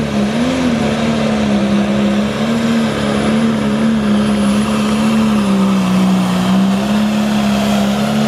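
Pro Stock pulling tractor's turbocharged diesel engine running flat out under load as it drags a weight-transfer sled. It is a loud, steady, high drone that wavers a little and sags slightly in pitch about two-thirds of the way through.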